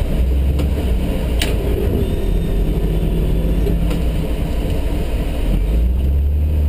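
Toyota 2F straight-six engine of a 1973 Land Cruiser FJ40, bored and stroked to 4.2 litres, running steadily at low throttle while the plow-fitted truck pushes snow. A few short clicks come through, the clearest about a second and a half in.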